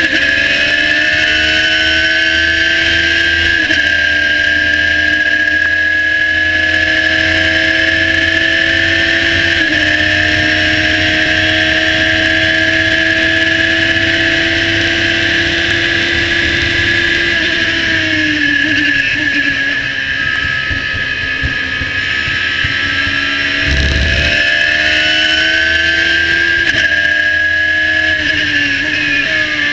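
Radical SR3 1500 race car's engine heard from the cockpit, screaming at high revs under full throttle, its pitch stepping down twice with quick upshifts. About two thirds of the way through the revs fall away as the car slows for a corner; near the end a short low thump comes and the engine picks up again.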